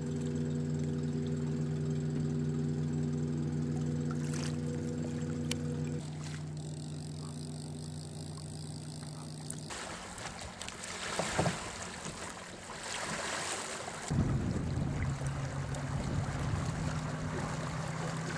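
An engine runs at a steady pitch, then fades about six to ten seconds in, leaving a rushing noise with a few knocks. From about fourteen seconds a lower, steady engine hum comes in under the rushing noise.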